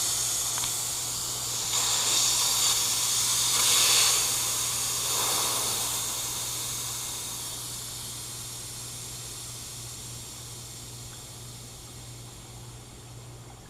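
High-pressure air hissing out through the combined bleed and moisture-drain valve of a Tuxing twin-cylinder HPA compressor, depressurizing the system after a fill. The hiss swells a few seconds in, then fades steadily as the pressure drops.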